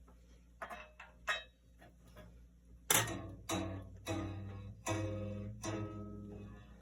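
A Central Machinery bandsaw's newly fitted blade plucked by hand about six times in the second half, each pluck a low twang that rings and fades, to judge its tension by pitch; the tension is judged maybe a little tight. A couple of light clicks come before the plucking.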